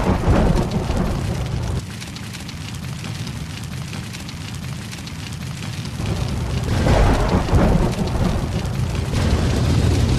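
Thunderstorm: steady rain with rolling thunder, one rumble at the start and another swelling and peaking about seven seconds in.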